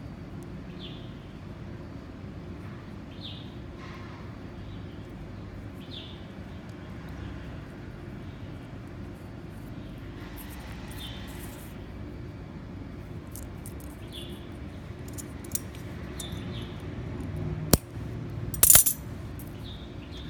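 Small handling sounds of fishing tackle (line, swivel and bobber) being worked by hand on paper, over a steady low background hum. Faint short high chirps recur every couple of seconds. Near the end come a sharp click and a brief rattle, the loudest sounds.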